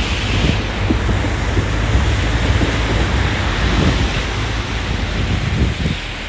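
Heavy wind noise buffeting the microphone over the low rumble of a four-wheel-drive vehicle moving slowly over rough ground; it eases a little near the end.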